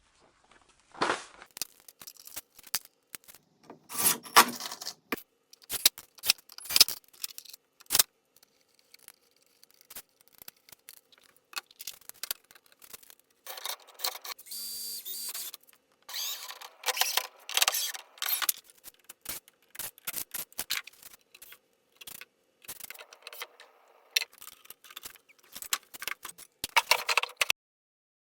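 Workshop handling sounds: a run of sharp clicks, knocks and scrapes of tools and wood being worked, with a brief steady whir about halfway through.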